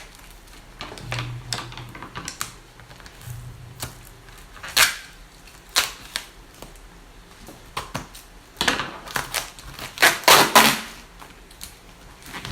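A cardboard box being handled and pried open, its packaging tape being pulled off: scattered clicks and taps, with a run of louder rips and rustles about nine to eleven seconds in.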